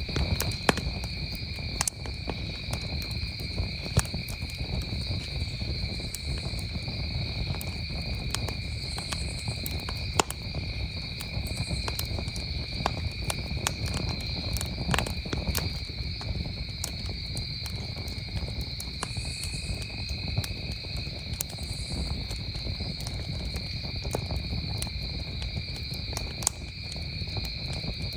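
Wood campfire crackling with irregular sharp pops over a steady, unbroken high trill of crickets, with a low rumble from the fire underneath.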